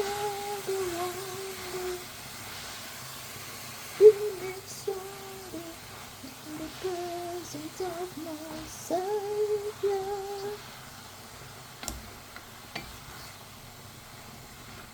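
A woman humming a tune without words, long held notes sliding up and down, stopping about ten seconds in. Two short clicks follow near the end.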